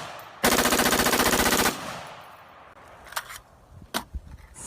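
Electronic sound effect of a toy assault rifle firing: one rapid burst of automatic fire lasting a little over a second, fading away, then a few faint clicks near the end.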